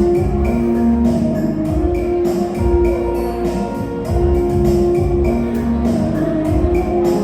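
Instrumental music with a steady beat and held melody notes, no voice.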